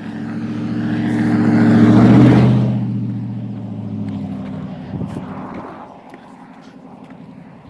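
A motor vehicle driving past close by, its engine and tyre noise building to a peak about two seconds in and then fading away.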